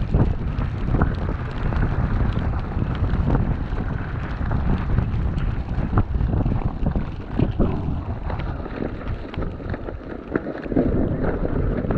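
Wind rumbling on an action camera's microphone while an e-bike is ridden through snow. It is a steady low rumble with irregular knocks and crunches from the bike going over the snowy ground.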